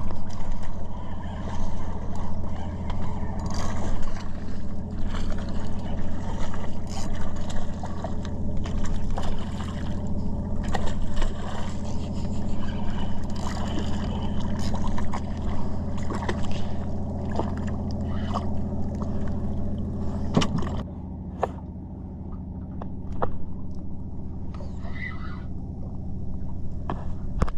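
Boat motor running steadily with a low hum, with scattered knocks and clicks on top. About twenty seconds in the motor gets a little quieter.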